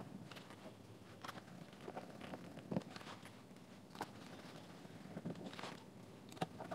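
Faint, irregular clicks and light taps of a small screwdriver turning screws into a JBL GO 2 Bluetooth speaker's housing, together with the plastic case being handled. The sharpest click comes about three seconds in.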